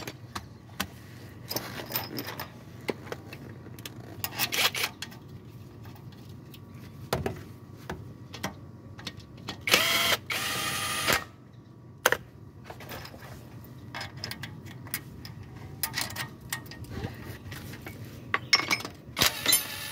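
Metal clicks and knocks of tools and parts as a new balancer shaft assembly is bolted up under a Toyota 2AZ-FE engine, with short bursts of ratcheting. About halfway through, a small power tool whirs for about a second and a half as a socket runs a mounting bolt in.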